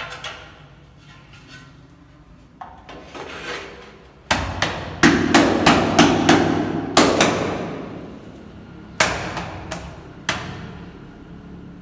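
Large ceramic wall tile being knocked into its bed of tile adhesive: a quick run of about ten knocks a few seconds in, then two single knocks near the end, bedding the tile so that adhesive fills behind it with no hollow spots.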